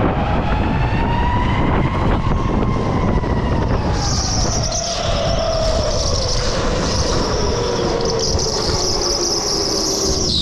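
Electric go-kart's motor whining, rising in pitch as it speeds up over the first two seconds, then falling slowly as it slows through the corners, over a steady rumble from the kart and its tyres. A steady high squeal joins about four seconds in.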